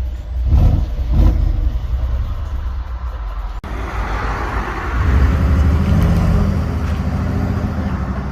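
Stock exhaust of a 2015 Mercedes-AMG G63's twin-turbo V8: two short revs near the start, a sudden brief dropout, then the engine pulling hard under acceleration with a rushing noise over its note.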